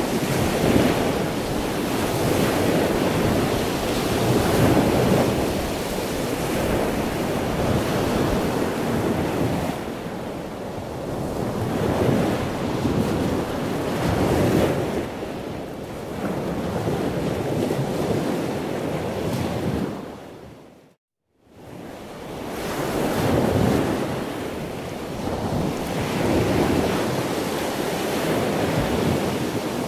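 Rushing noise that swells and falls every few seconds, like surf or wind. About two-thirds in it fades out to silence for a moment, then comes back.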